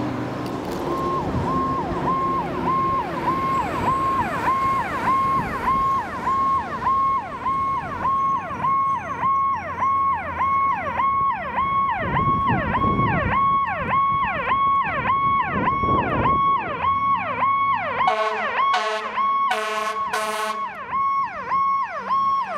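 2012 Pierce Saber pumper tanker fire engine responding with its siren yelping, rising and falling about twice a second, over the rumble of the truck. Near the end come a few short horn blasts.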